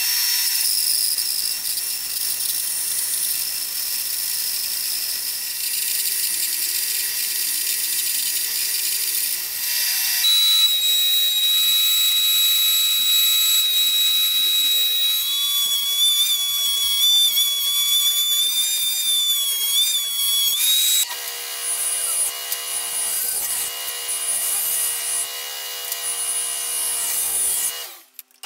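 Woodshop power tools in turn: a bandsaw resawing cedar boards, then a DeWalt benchtop thickness planer running with a steady high whine, then a different machine running from about three-quarters of the way through.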